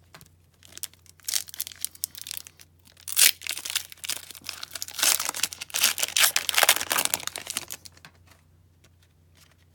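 Hockey card pack wrapper being torn open by hand and crinkled as the cards are pulled out: a run of sharp crackling and tearing from about a second in, loudest midway, dying away near the end.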